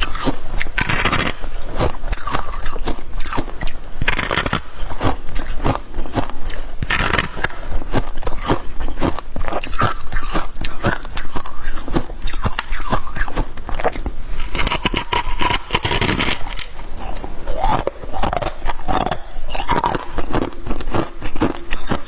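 Freezer frost being bitten and chewed up close: a dense, continuous run of crunches and crackles, with some scraping.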